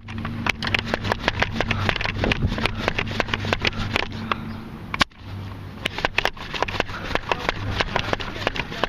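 Nerf blasters at close quarters: a rapid clatter of sharp clicks and knocks, several a second, over a steady low hum. The sound drops out for a moment about five seconds in.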